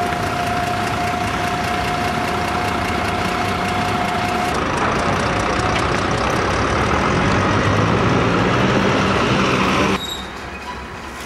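Busy road traffic: car, van and bus engines running steadily, with a thin steady tone for the first few seconds and an engine growing louder after that. About ten seconds in, the sound drops abruptly to quieter, more distant traffic.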